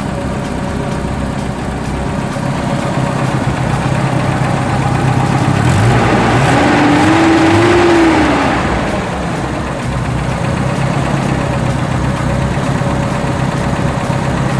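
Car engine running steadily, revved up once and let fall back about halfway through.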